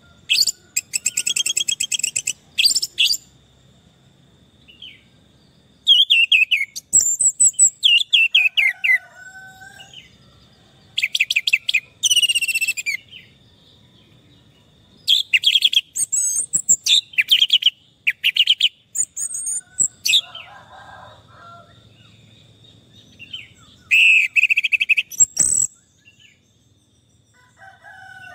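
Orange-headed thrush (anis merah) singing: bursts of rapid, varied phrases with sliding notes, each a second or two long, separated by short pauses.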